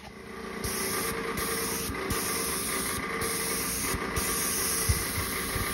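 Campbell Hausfeld PaintPro airless paint sprayer running and spraying from its gun: a steady hiss of atomised spray over the hum of the motor and pump. The hiss dips briefly about once a second. The sprayer is building pressure again after a new seal in its spray/prime selector.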